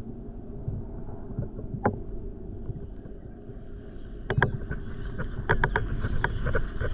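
Muffled underwater noise, heard with the microphone under water in a pool skimmer, with a run of sharp clicks and taps starting about four seconds in.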